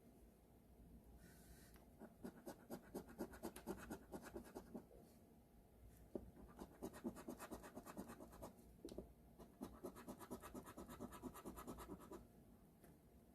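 Scratch-off lottery ticket being scratched in three runs of quick back-and-forth strokes, with short pauses between them.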